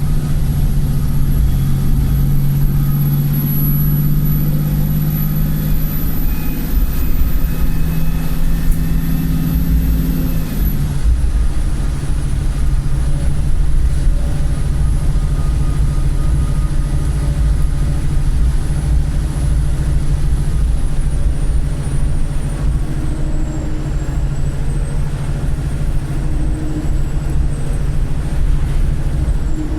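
Bus diesel engine pulling under load with a thin, very high-pitched turbo squeal over it. About eleven seconds in, the engine note drops and the squeal steps down with it. The squeal falls again and then rises towards the end. The uploader puts this squeal down to a faulty turbo.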